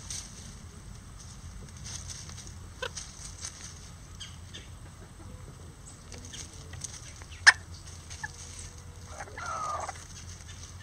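Bantam chickens foraging in dry leaf litter, with scattered pecking clicks and rustles and one sharp tap about seven seconds in. A chicken gives one short call near the end.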